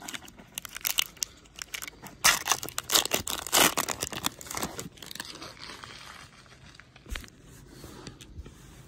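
Wrapper of a 2016 Series 1 baseball card pack being torn open and crinkled: a quick run of rips and crackles for about five seconds, then quieter rustling with a few soft clicks.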